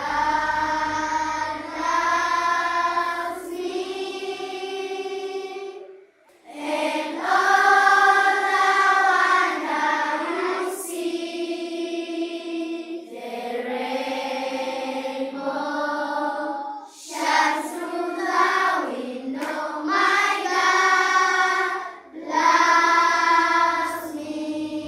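A choir of children singing together, holding long notes in several phrases with short breaks between them.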